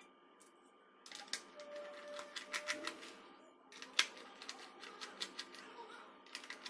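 Small screwdriver turning out the screws of an Xbox 360 wired controller's plastic shell: a run of quick, irregular clicks and ticks that starts about a second in, with one sharper click about four seconds in.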